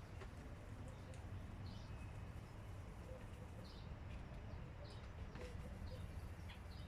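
A small bird chirping, short high notes repeated about once a second, over a low steady rumble.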